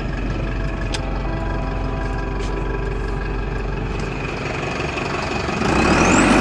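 Truck engine running steadily, heard from inside the cab, getting louder about five and a half seconds in, with a rising whine near the end.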